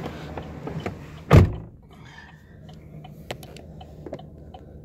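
A pickup truck's door shut with a heavy thunk about a second and a half in, after which the outside background noise is muffled. Faint, evenly spaced ticking inside the cab follows, about three ticks a second.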